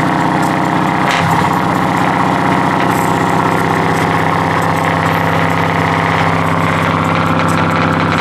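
Scania truck engine idling steadily through an open exhaust pipe, loud and even, with a brief change in its beat about a second in.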